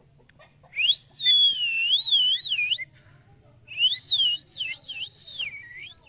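Rose-ringed parakeet whistling in two bouts of about two seconds each, the pitch swooping up and down in quick wavy glides.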